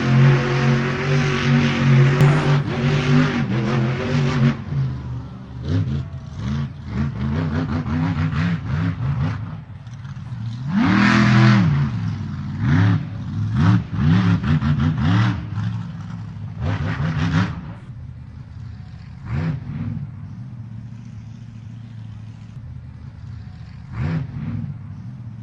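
Monster truck engine running at a steady high speed, then blipped through a quick run of revs, each rising and falling in pitch, with one longer, louder rev about eleven seconds in. It then drops to a lower idle, with two more short revs near the end.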